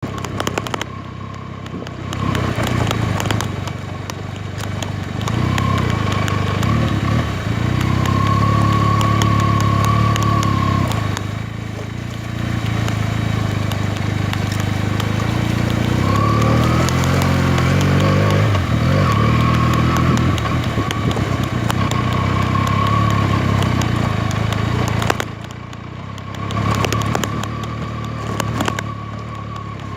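Benelli TNT 300's parallel-twin engine running on the move, its pitch rising and falling with the throttle; it eases off briefly near the end.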